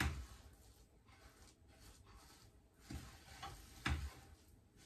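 Wooden spoon stirring a thick sesame-seed mixture in a stainless steel pot: irregular scraping with a few knocks against the pot, the loudest near the end.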